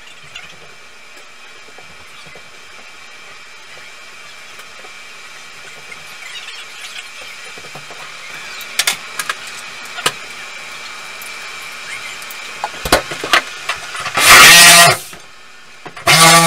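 Scattered clicks and knocks, then a corded reciprocating saw runs in a loud burst of about a second, stops, and starts again near the end as its blade is pushed into the plastic tub surround panel, running with a steady whine.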